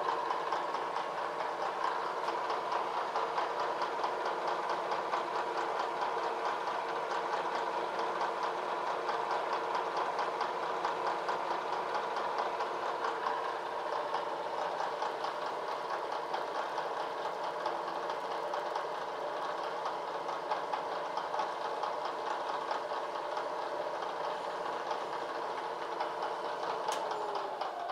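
Vertical milling machine cutting metal with a long end mill: steady motor and spindle whine with a fast, even chatter from the cutter. Near the end the pitch starts to fall as the spindle slows down.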